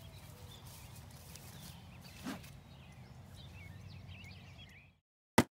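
Open-field ambience: a low steady rumble with birds chirping, which cuts off about five seconds in. A sharp plop from the animated end card follows near the end and is the loudest sound.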